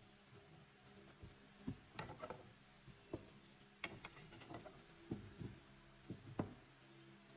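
Faint, irregular light knocks, taps and rubs of wood being handled, over a steady low hum.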